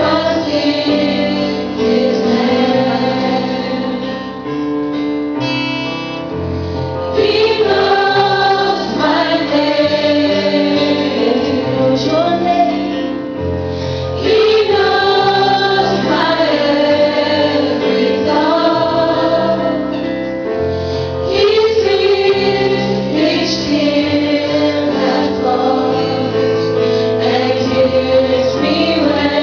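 Worship music: a group of voices singing over instrumental backing.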